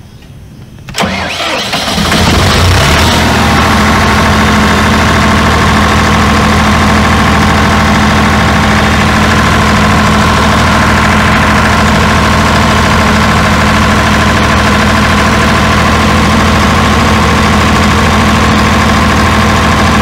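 Diesel generator set's engine started from its DSE4520 controller: the starter cranks about a second in, the engine catches within a couple of seconds and settles into steady, loud running.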